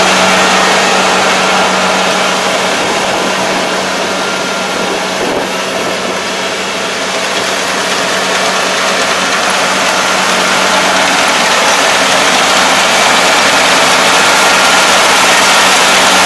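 ANR460 combine harvester running steadily while cutting rice, its engine hum under the dense clatter of the cutting and threshing gear. It dips a little about five seconds in and grows louder again toward the end as the machine comes close.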